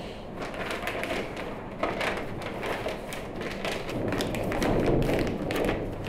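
A plastic bag crinkling and rustling as sneakers are pushed into it, with soft thumps and taps from handling.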